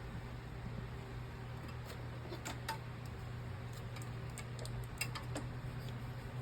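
Scattered light clicks and taps of small repair tools and parts on a phone being worked on, mostly in the middle of the stretch, over a steady low hum.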